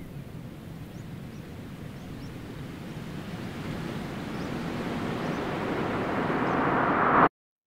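A rushing, wind-like noise that swells steadily louder and brighter, then cuts off abruptly to dead silence about seven seconds in.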